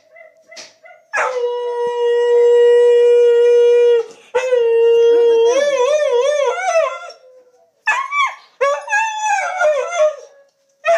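Siberian husky howling. First comes one long, steady held note, then a long howl whose pitch wobbles up and down, then a few shorter howls that fall in pitch near the end.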